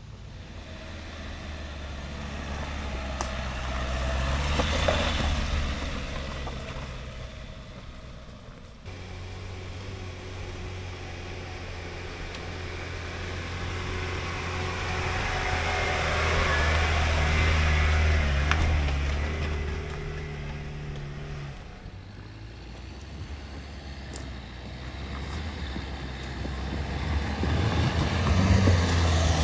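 Off-road car engines working at low speed on a dirt track in three passes: a Dacia Duster 4x4's 1.5 diesel pulling away, then a Lada Niva's 1.7 four-cylinder petrol engine running louder as it comes closer, then the Duster again growing louder near the end. Each engine note swells and fades, with cuts between the passes.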